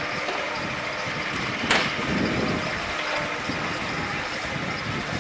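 Steady machine hum with scattered crowd chatter, and one sharp knock about a second and a half in.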